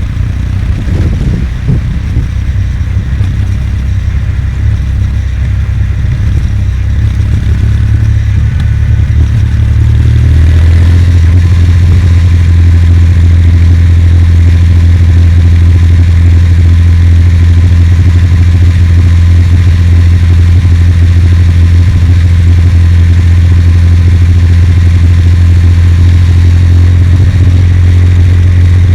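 Kawasaki W800's air-cooled parallel-twin engine running as the motorcycle rides. For the first ten seconds or so the low rumble is uneven. Then it gets louder and settles into a steady drone at a constant engine speed.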